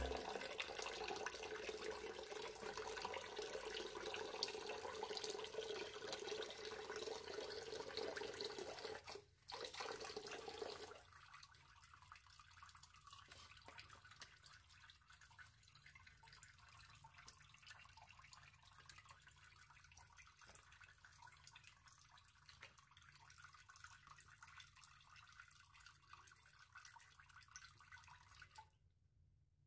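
Tap water running into a plastic basin while fish are rinsed in it, stopping about eleven seconds in. After that only faint drips and soft handling sounds.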